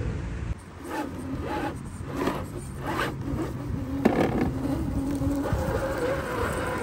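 Electric motor and gearbox of an Axial SCX10 II RC crawler whining in short, uneven throttle bursts, then more steadily in the second half, with the tyres scrabbling against rock as it climbs.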